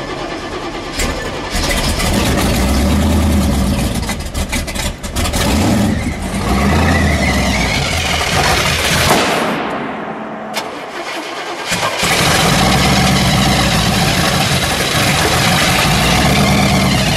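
Supercharged 427 Chevrolet big-block V8 in a 1969 Camaro Pro Street car cranking and firing up about a second and a half in. It then runs loudly, the revs rising and falling.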